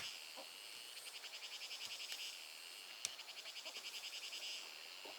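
A chorus of trilling calls from small animals, high-pitched and rapidly pulsing, in two long trains from about a second in to nearly three seconds and again to about four and a half seconds, with one sharp click in between.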